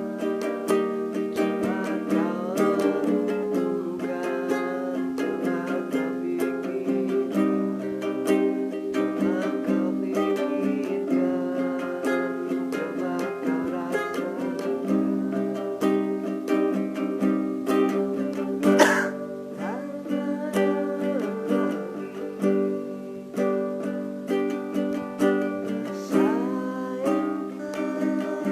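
Ukulele playing, a run of plucked notes and chords that carries on steadily. There is one sharp, louder stroke about two-thirds of the way through.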